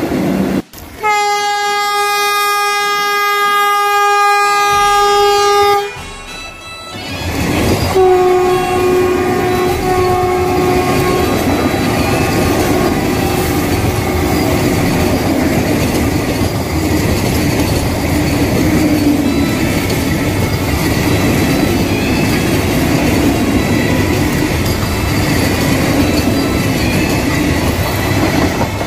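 Vande Bharat Express electric trainset sounding its horn, one steady note held for about five seconds. About eight seconds in, a second, slightly lower horn blast comes as the train runs past close by, and the loud rush and clatter of its wheels and carriages continues for the rest of the time.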